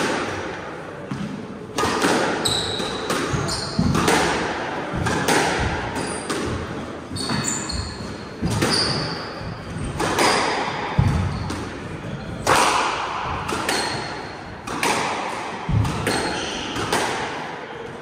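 Squash rally in an enclosed court: the ball cracking off rackets and walls about once a second, each hit echoing around the court, with short high squeaks of shoes on the wooden floor between shots.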